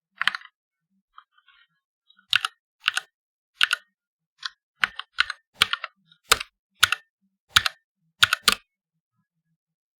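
Typing on a mechanical keyboard with red (linear) switches: short clusters of key clacks about every half second, stopping shortly before the end.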